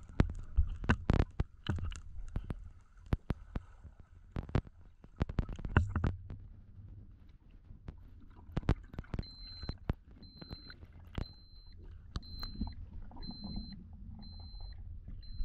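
Underwater sound of a freediver's "grouper call": low grunting rumbles with sharp clicks as air from the lungs is pushed into the mouth to equalize ear pressure on a deep dive, past about 66 feet. From about nine seconds in, a short high beep repeats about once a second.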